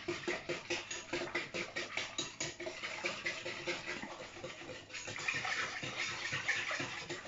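Wire whisk beating a thin milk mixture in a glass bowl: a rapid rhythmic swishing and sloshing, about five or six strokes a second, turning more even past the middle.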